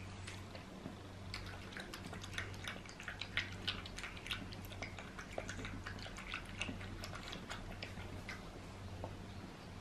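A pug puppy lapping water from a ceramic bowl: quick, irregular wet clicks that thin out near the end. A steady low hum runs underneath.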